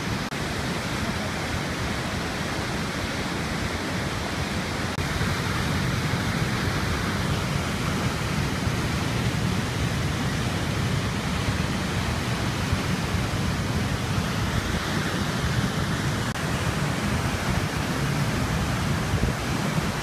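Tall waterfall plunging onto rocks: a steady, unbroken rush of falling water.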